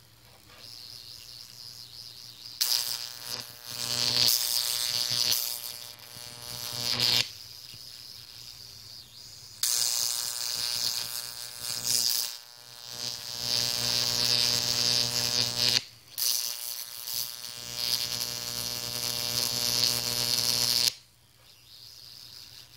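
High-voltage arc from a 15 kV transformer buzzing and crackling as it burns into dry concrete mix powder, finding spots where it can connect through to the copper ground plate. It comes in several bursts of a few seconds that start and stop abruptly, with a low hum between them.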